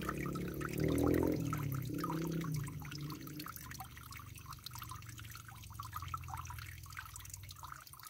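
Spring water trickling and dripping onto a folded leaf held in the flow, a faint patter of small drips. A low voice hums briefly in the first few seconds.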